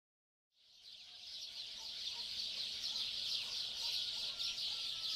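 A dense chorus of birds chirping, fading in over the first second or so and then holding steady.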